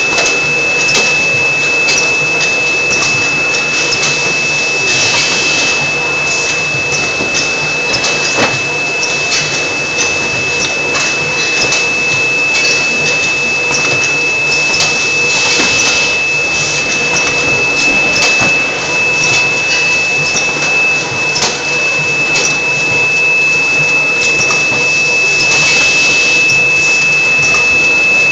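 Automatic egg-tray case packer running: a steady clatter of conveyor and machinery with repeated clicks and knocks as the gripper head moves trays of eggs into a box, over a steady high-pitched whine.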